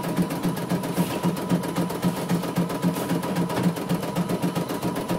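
CNY E900 computerized embroidery machine stitching: the needle strokes in a fast, even rhythm over a steady motor whine.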